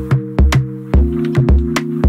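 Background music with a steady drum beat over held synth chords; the chord shifts to a lower one about halfway through.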